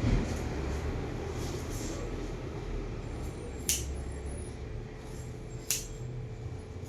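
Scissors snipping through hair: a few separate sharp snips a couple of seconds apart, over a steady low hum.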